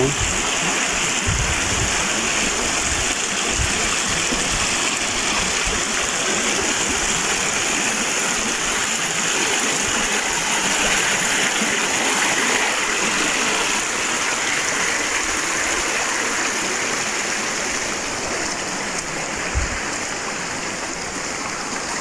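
Steady rush of flowing water from a rocky stream and waterfall, an even, continuous noise without breaks, easing slightly near the end.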